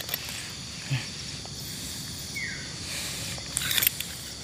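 Steady high-pitched hiss of outdoor background, with a brief crackling rustle in dry leaf litter about three and a half seconds in.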